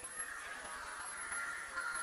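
Steady outdoor background with a continuous high-pitched hum and no distinct events.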